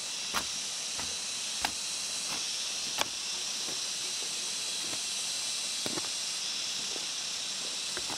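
Hand hoe chopping into earth: a few sharp strikes at irregular intervals, about one every second or two, over a steady high hiss.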